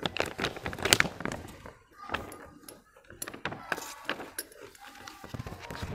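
Plastic sheet crinkling and rustling in the hands as it is slipped over a glass beaker, with irregular light knocks and clinks, loudest about a second in.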